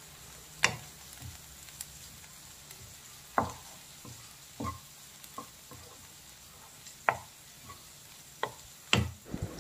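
Wooden spatula stirring a dry coconut and spring-onion stir-fry in a nonstick kadai, scraping through the mix with a few sharp knocks against the pan at uneven intervals.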